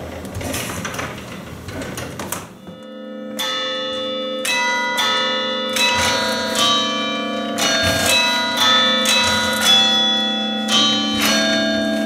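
Wooden handles of a hand-played church bell chime clattering as they are pressed, then from about three seconds in the 11-bell cathedral chime rings a slow tune, one bell struck after another, each note ringing on under the next.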